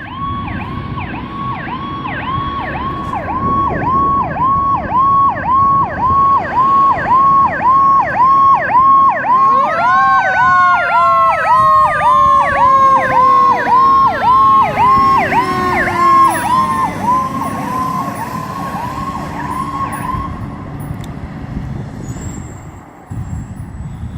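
Fire engine's electronic siren cycling rapidly, about two sweeps a second, over the rumble of the truck underway. About ten seconds in, a second siren tone rises sharply and then falls slowly for several seconds. The rapid cycling stops near the end.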